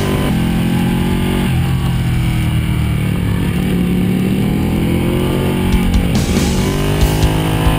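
Ducati Panigale's V-twin engine pulling along in second gear. The revs drop about a second and a half in, then climb steadily again, with music playing over it.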